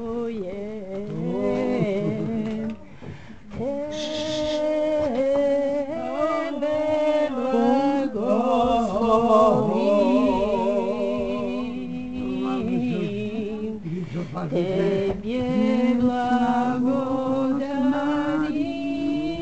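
Unaccompanied solo singing of a slow Orthodox church hymn, with long held notes and vibrato.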